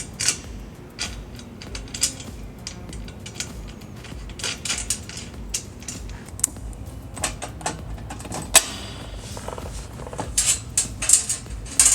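Scattered metallic clicks, knocks and rattles of a golf cart storage basket and its mounting brackets being handled while its bolt holes are lined up and bolts are started. There is one sharp knock past the middle and a quick run of clicks near the end.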